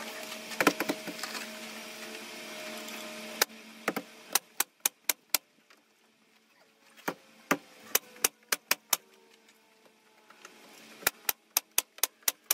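Pneumatic coil nailer shooting nails through wood siding in quick runs of sharp shots, five to seven in each run with short pauses between. Before the shots there is a steady hum with a knock or two.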